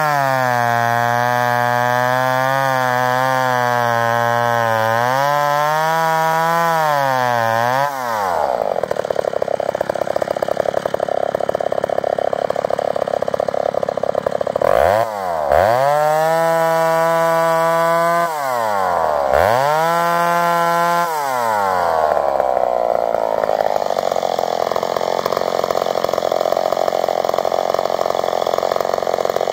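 McCulloch Super 55 chainsaw, an 83 cc single-cylinder two-stroke, running at high revs with a wavering pitch while bucking grand fir, then dropping to idle about eight seconds in. Later it is revved to full throttle twice for a couple of seconds each, falling back to idle each time.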